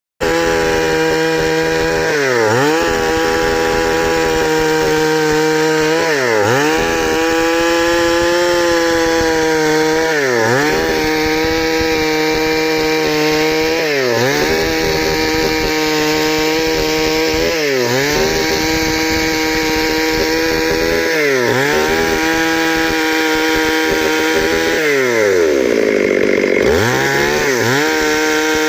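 Stihl MS 382 two-stroke chainsaw running hard and cutting wood, its engine note dipping briefly and recovering about every four seconds, with a longer dip near the end. The saw runs strongly after the stuck piston has been repaired.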